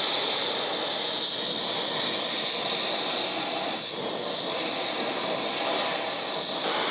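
Brazing torch flame hissing steadily as it heats a cast iron part for brazing.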